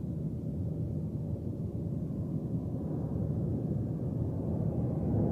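Fighter jet engine sound effect: a steady low rumble that grows slightly louder toward the end.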